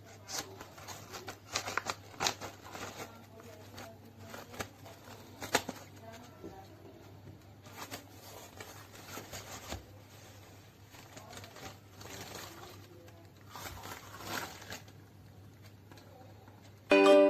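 A cardboard mailer being opened and handled: irregular rustling, scraping and sharp crackles of cardboard and packaging. A jingle with chime-like tones starts suddenly right at the end.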